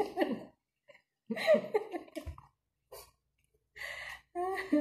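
A woman laughing in several short bursts, with a soft low thump about two seconds in.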